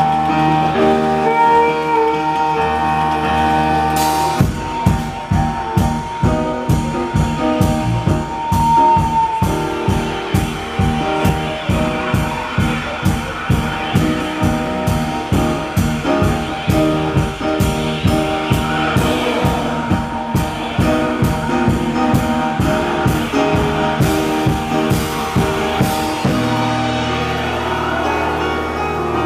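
Live band playing: sustained keyboard and electric guitar chords, joined about four seconds in by a steady, driving beat that drops out near the end.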